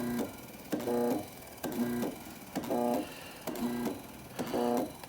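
Electrolux LTE12 washing machine control board running its agitation cycle on the bench: its motor output switches on and off in short pulses, giving a steady-pitched electrical buzz of about half a second with a click at each start, repeating roughly once a second.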